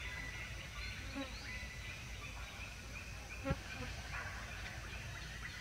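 Forest ambience: a steady high insect drone with scattered short bird chirps and calls, and one short low knock about three and a half seconds in.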